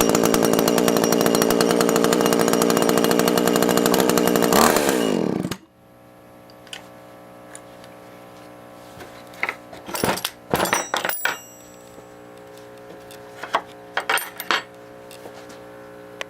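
Maruyama chainsaw engine running steadily, then switched off about four and a half seconds in, its pitch dropping as it winds down and stops; the owner says this used saw runs well. Afterwards a few scattered clicks and knocks over a low hum.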